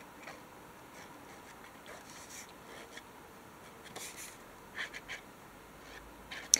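Faint, scattered short rasps and rustles of a glue runner being pressed along paper edges and of paper sheets being handled on a desk, with a sharp click near the end.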